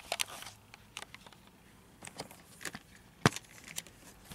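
Plastic Blu-ray case being handled and flipped over: scattered light clicks and taps, with one sharp click about three seconds in.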